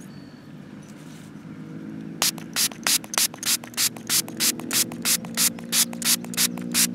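Handheld trigger spray bottle squirted over and over, about three quick squirts a second, starting about two seconds in.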